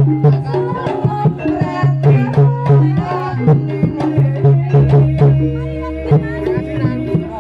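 Live Javanese jaranan ensemble playing: fast hand-drum strokes in a busy rhythm over repeated, held pitched notes from gong-type percussion.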